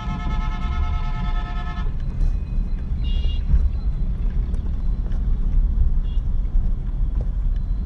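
Heavy low rumble of road traffic or a vehicle on the move. A vehicle horn blares with a steady tone until about two seconds in, and a short, higher horn beep follows about a second later.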